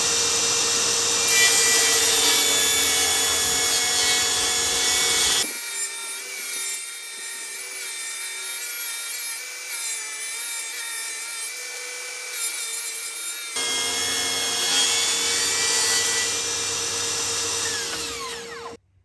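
Table saw running and ripping a strip from a wooden board, a steady whine with a hum. It goes quieter and thinner through the middle, then returns to full strength and cuts off abruptly near the end.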